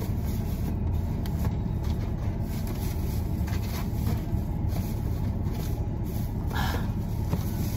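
Steady low rumble inside a vehicle's cabin: engine and running noise heard from within the SUV.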